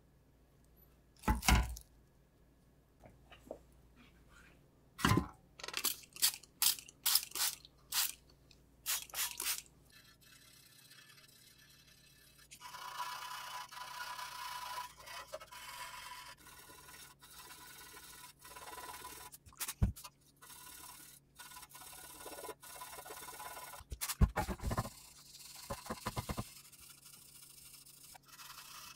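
Sandpaper rubbed by hand over the filled surface of a brake backing plate to level it. There are separate short scraping strokes in the first third, then a steady back-and-forth rasping from about halfway in until near the end.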